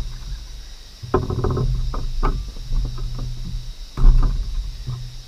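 Hands rubbing seasoning into fish fillets in a plastic tray on a wooden table: irregular scuffing and rubbing with low knocks and rumbles as the tray shifts on the table, loudest about four seconds in.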